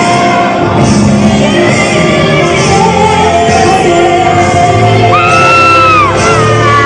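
Live pop band with a female lead vocal singing held, wavering notes, amplified in a large hall. About five seconds in a very high held cry or scream rises over the music and bends down to end a second later.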